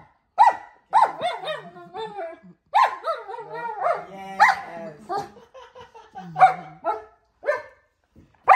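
German Shepherd barking and grumbling in protest at being made to roll over: a string of short barks, with a longer wavering, moaning grumble in the middle.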